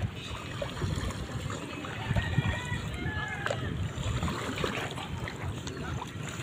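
Shallow water lapping and splashing at the shoreline, with wind rumbling on the microphone and faint distant voices.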